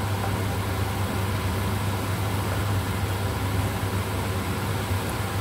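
Steady low mechanical hum with an even hiss, over a pan of pork ribs and lotus root simmering as it is stirred with a wooden spatula.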